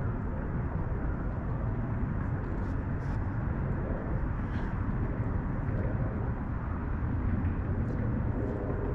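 Steady low rumbling outdoor background noise with a few faint clicks.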